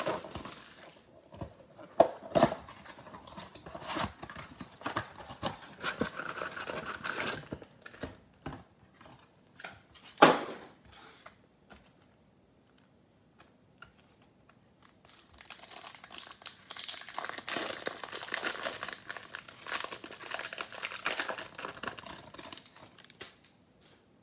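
Plastic shrink wrap crinkling as it is stripped off a trading card box, with scattered clicks and a sharp knock about ten seconds in. After a short quieter spell, card pack wrappers crinkle densely for about eight seconds as the packs are torn open.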